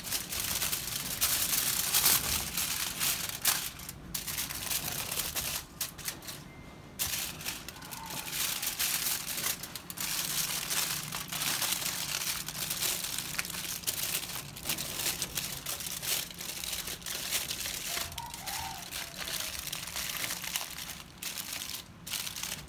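Aluminium foil crinkling and crackling as it is folded and crimped shut by hand, on and off, with a short lull about six seconds in.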